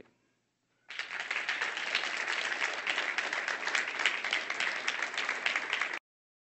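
Audience applauding, starting about a second in and cutting off abruptly near the end.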